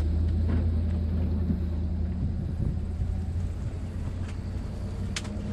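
A vehicle engine runs steadily with a low, even hum as the vehicle moves across a field, with a few sharp clicks near the end.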